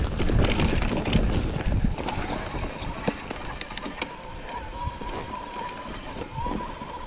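Mountain bike rolling over a rough trail: wind buffets the microphone and the bike rattles and knocks, loudest in the first two seconds. From about four seconds in, a steady thin whine sounds under scattered clicks.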